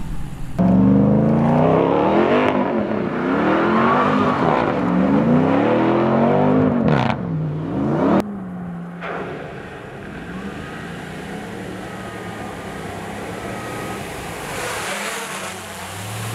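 Supercharged 6.2-litre HEMI V8 of a Ram 1500 TRX revved hard over and over in a burnout, its note swinging up and down, with a short tyre screech near the middle. It then cuts abruptly to a quieter, steadier engine sound with a faint whine, and near the end water sprays and rushes from the wheels as the truck drives through.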